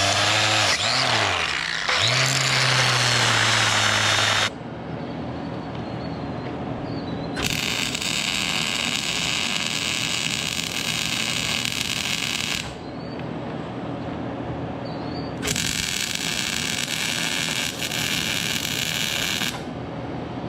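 Angle grinder running on a steel chain and I-beam for about four and a half seconds, its motor pitch dipping under load and then recovering. Then arc welding crackles in two steady runs of about five and four seconds, with quieter pauses between them.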